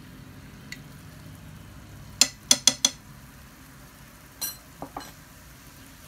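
Diced chicken in cream sizzling quietly in a frying pan. A little over two seconds in come four sharp clinks of a spoon as harissa is knocked into the pan, then three softer knocks near the end.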